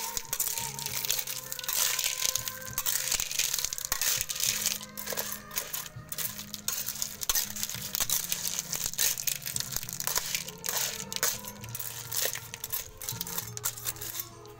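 Small river clams clattering against each other and the wok as a metal spatula stirs and scrapes them around. The sound is a dense, continuous run of hard shell clicks.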